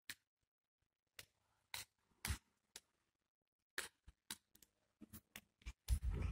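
Footsteps on a hard concrete floor: scattered short taps and scuffs with silent gaps, growing denser and louder near the end.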